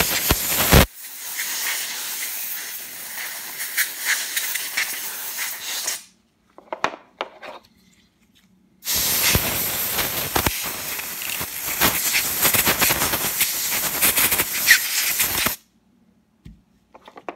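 Can of compressed air blowing loose debris out of the checkering of wooden revolver grips: a long hiss, sputtering in its first second and stopping about six seconds in, a few faint clicks, then a second long hiss from about nine seconds to about fifteen and a half.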